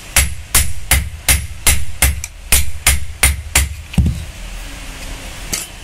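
Blacksmith's hand hammer striking metal on an anvil while forging a betel nut cutter blade: about a dozen sharp, ringing blows in a steady rhythm of roughly three a second, stopping about four seconds in.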